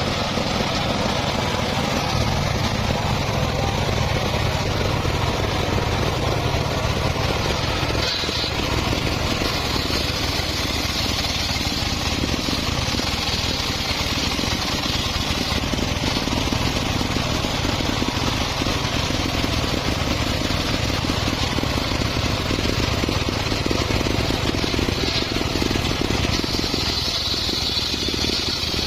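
Engine-driven circular sawmill running steadily while cutting mahogany, a continuous engine drone under the blade's noise. A brighter, higher hiss from the blade comes up about 8 seconds in and again near the end.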